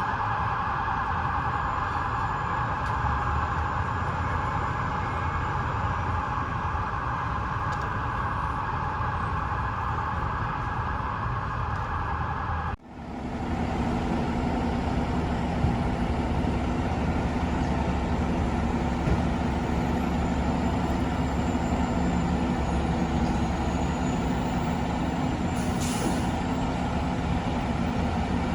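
Heavy fire truck diesel engine running steadily, with a steady hiss over it in the first half. About halfway through the sound cuts off abruptly, then another truck's engine hum with steady low tones follows.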